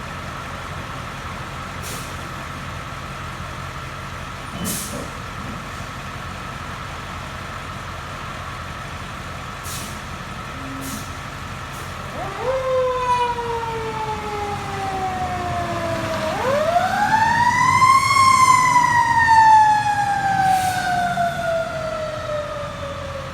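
Fire truck's engine idling steadily. About twelve seconds in, its siren winds up quickly and slowly falls in pitch. A few seconds later it winds up again, louder, and slowly falls away.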